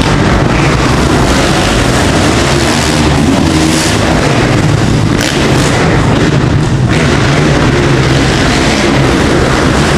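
Dirt bike engines running loud and revving up and down as the bikes ride a motocross track.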